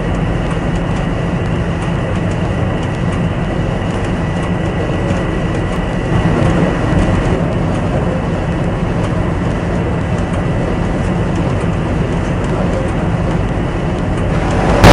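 Steady low drone of a ship's engine with a constant noisy rush over it.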